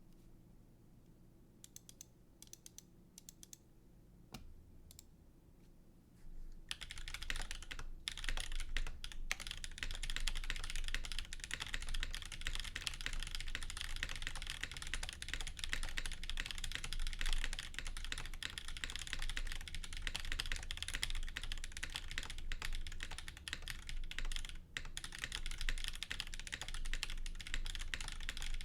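Mechanical keyboard with lubed Moyu Black switches on an FR4 plate and GMK keycaps being typed on, loud and clacky: a few separate keystrokes at first, then about six seconds in, steady fast typing, with a brief pause near the end.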